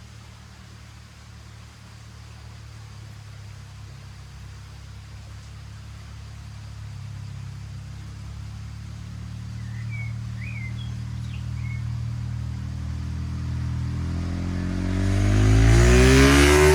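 KTM 690 SMC-R single-cylinder supermoto with a LeoVince Nero slip-on exhaust, fitted with its cat and dB-killer, approaching from a distance. Its exhaust note grows steadily louder, then swells sharply as the bike passes close near the end.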